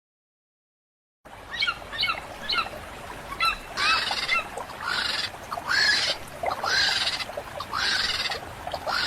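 Bird calls starting about a second in: a quick run of short rising calls, then longer, harsher calls repeating about once a second.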